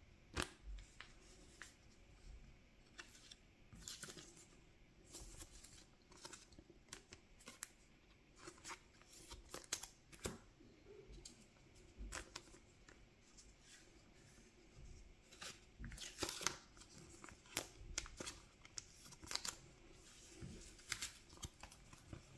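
Faint, irregular rustles and short clicks of trading cards being slid into soft clear plastic card sleeves and handled.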